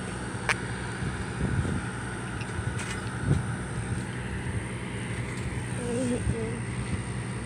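A motor running steadily in the background, a low even drone, with one sharp click about half a second in.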